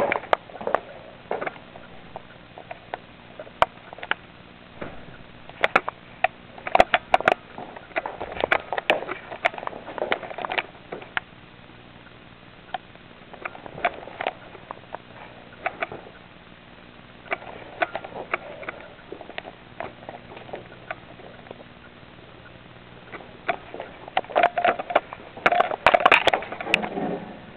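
Pet gerbil moving about and scrabbling: irregular sharp clicks and scratches that come in bunches, busiest about a quarter of the way in and again near the end.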